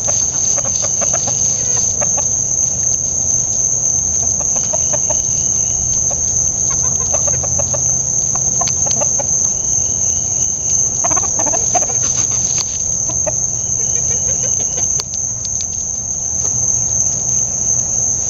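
A flock of chickens giving scattered soft clucks as they feed on black soldier fly larvae, over a loud, steady, high-pitched drone of insects.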